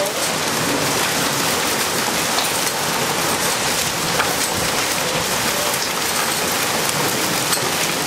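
Heavy rain mixed with small hail pelting concrete and gravel: a dense, steady hiss with scattered sharp ticks from the stones striking the ground.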